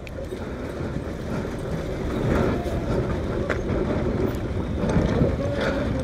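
Motorcycle engine running at low speed as the bike rolls out of a driveway onto the street, picked up by a phone microphone inside the rider's helmet.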